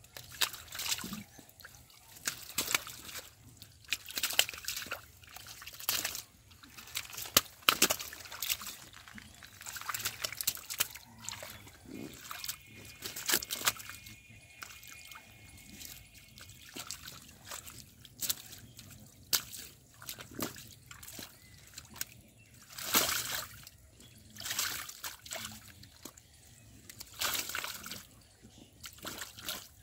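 Irregular splashing and sloshing of shallow muddy water as bare hands grab at catfish thrashing in it.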